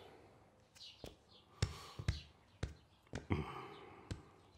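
A series of soft, irregularly spaced clicks and knocks.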